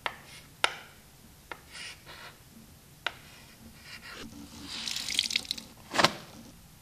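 Chalk on a blackboard: sharp taps as the chalk meets the board and short scraping strokes as letters are written. Then a paper towel dispenser: a rustling hiss as towel paper is pulled out, ending in a loud sharp snap about six seconds in.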